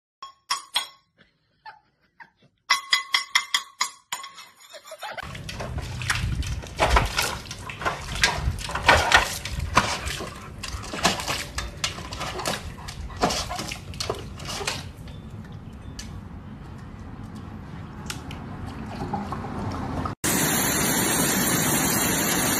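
A few clicks and taps, then a dog splashing its paws in a metal water bowl in an irregular run of splashes that fades off. Near the end comes a steady rush of water pouring over a small weir.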